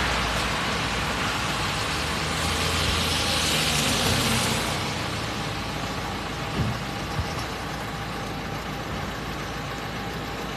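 Road traffic on a snow-covered street: vehicle engines running and tyres on the road, louder and hissier for the first few seconds, then easing off. Two small knocks come about two-thirds of the way through.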